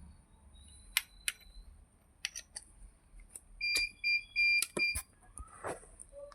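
Electric chiropractic adjusting gun (spine adjustor): a series of sharp, separate clicks, with a few short high-pitched electronic beeps about four seconds in.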